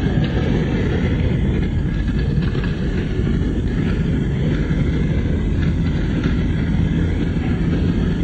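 Steady low rumble of a vehicle's engine and tyres, heard from inside the cabin while driving along a snow-covered road.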